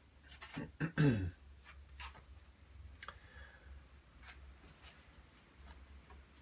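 A brief low vocal sound that falls in pitch about a second in, followed by a few faint light clicks, over a steady low hum.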